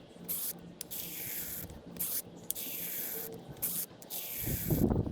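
Phoenix brake flusher being hand-pumped, a hiss with each of about five even strokes as it pushes fresh brake fluid from the caliper's bleeder screw up to the master cylinder. A loud run of knocks and clatter starts near the end.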